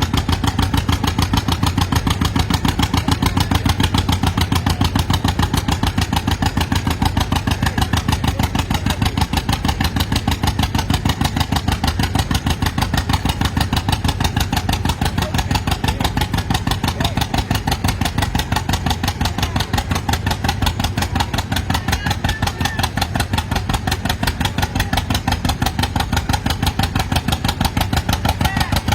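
Antique farm tractor engine running steadily, with an even, rapid chug of firing pulses.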